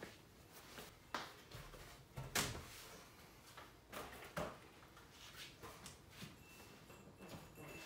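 Scattered knocks and bumps of a long pine 2x12 board being lifted and shifted by hand, the loudest about two and a half seconds in.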